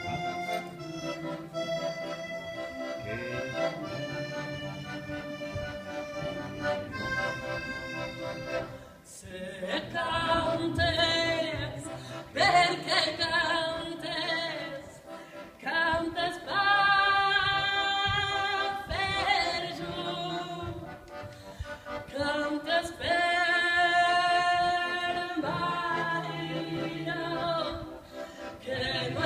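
A button accordion playing a tune on its own, then from about nine seconds in a woman sings over it, louder than the instrument alone.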